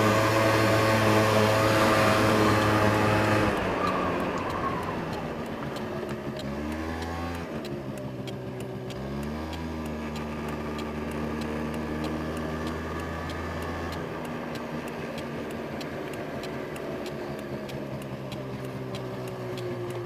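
Small Honda scooter engine running at road speed with wind noise on the camera, easing off about three and a half seconds in. The engine note then dips and climbs again once and runs on low and steady as the scooter rolls slowly.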